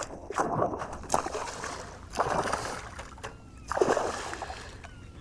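Water splashing in about five separate bursts beside a kayak, each fading quickly, with a few faint bird chirps in the background.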